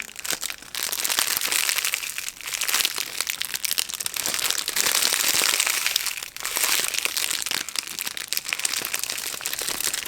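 Plastic packaging crinkling and crackling steadily as it is handled, in many quick small crackles.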